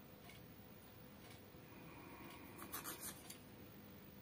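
Faint taps and scrapes of small soft clay pieces being slid and set down on a tile floor by hand. There is a short cluster of them about two thirds of the way through.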